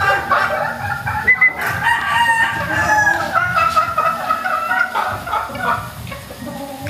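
Several gamefowl roosters crowing over one another, mixed with chickens clucking, in a continuous overlapping chorus.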